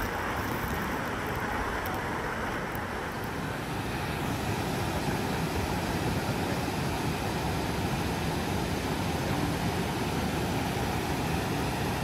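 Steady rushing of water pouring over the travertine cascades of Havasu Creek. About four seconds in, the sound shifts and grows slightly louder and fuller.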